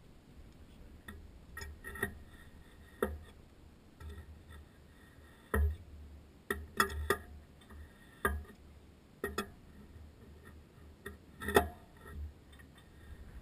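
Irregular sharp metallic clicks and clinks of a steel wrench on the nut of an anhydrous ammonia Y-strainer filter housing as the nut is snugged down, about a dozen over the stretch.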